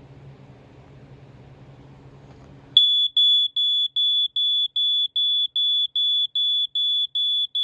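A First Alert FACO carbon monoxide alarm's horn starts about three seconds in, after a faint low hum. It gives a loud, high-pitched beep about three times a second in an unbroken run. The owner says this unit has a horn issue.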